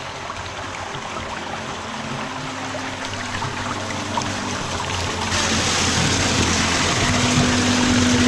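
Shallow creek water rushing over rock close to the microphone, growing steadily louder, turning into a fuller, hissier rush about five seconds in.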